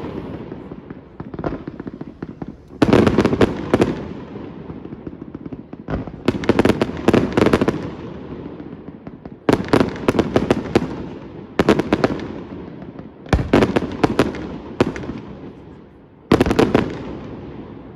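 Fireworks display: aerial shells bursting every two to three seconds, each a sharp bang followed by a rapid cluster of crackling reports and a rolling echo that fades away.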